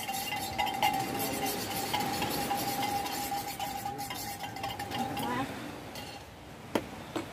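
Cups and utensils clinking at a camp table, with a spoon stirring, over a steady high tone that stops about five and a half seconds in. Two sharp clicks near the end.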